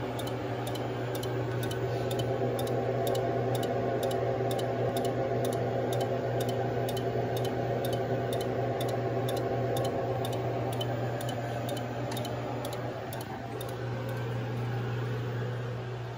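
Steady electrical hum and whir from a powered machine control cabinet housing a running Magnetek 503 (DS309) AC drive. A faint, even high ticking a little over twice a second runs through it.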